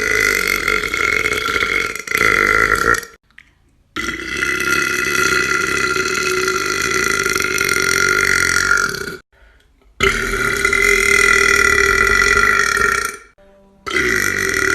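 A person letting out a series of long, loud burps, four in a row with short pauses between, the longest held for about five seconds at a steady pitch.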